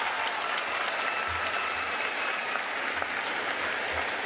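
Large audience in an arena applauding steadily.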